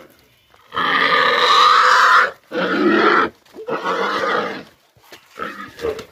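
A pig squealing loudly in three long cries, then a few shorter, weaker ones near the end, in distress as it is pushed and lifted by hand.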